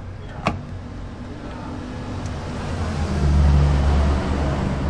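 A sharp click about half a second in, then a low motor-vehicle engine rumble that swells from about two and a half seconds in and stays loud.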